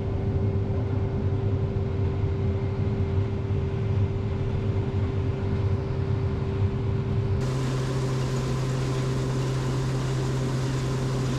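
Farm machinery running steadily with a constant hum and a steady tone. About seven seconds in the sound changes abruptly to a different steady machine hum.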